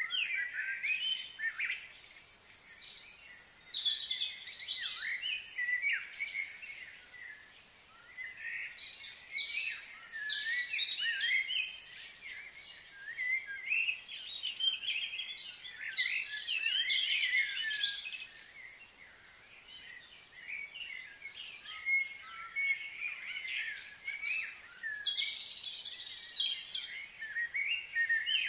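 Outdoor birds chirping and singing, many short, high twittering calls overlapping, coming in bouts with brief lulls between them.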